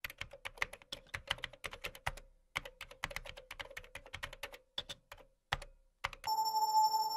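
Typing on a computer keyboard: quick runs of keystrokes with a short pause about two seconds in and a few last keys near five and a half seconds. Music made of steady held tones comes in about six seconds in.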